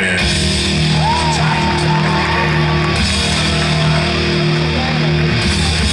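Rock music playing loudly and steadily.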